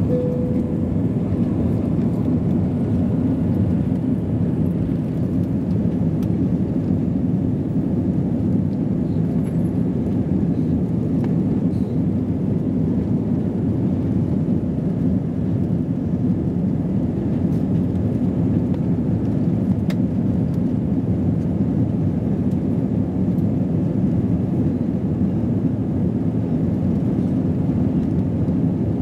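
Steady cabin noise inside an Airbus A320 climbing out after take-off: the engines and rushing airflow make a deep, even rumble that does not change.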